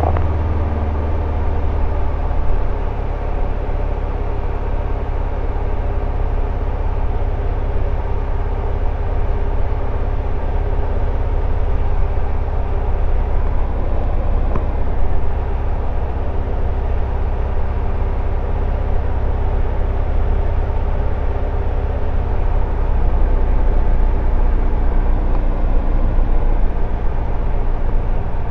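Single-engine light aircraft's piston engine and propeller droning steadily, heard from inside the cockpit. It grows a little louder about three-quarters of the way through.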